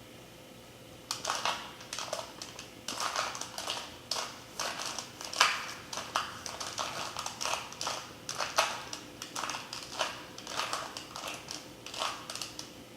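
A 2x2 Rubik's cube being twisted by hand: quick, irregular clicks and rattles of its plastic layers turning, starting about a second in.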